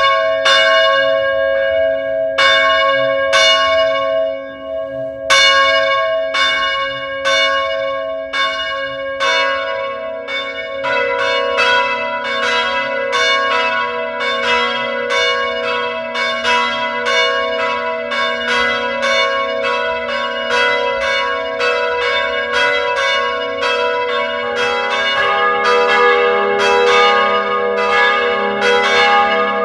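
Church bells ringing. Strikes come about one a second at first, with a brief gap about five seconds in. From about ten seconds in, faster strikes on several bells overlap, their ringing tones sustaining into one another.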